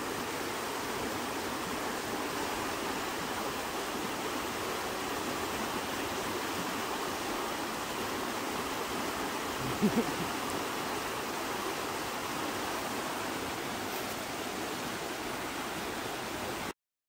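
Steady rush of a shallow creek running over rocks and riffles. About ten seconds in, two quick thumps stand out briefly.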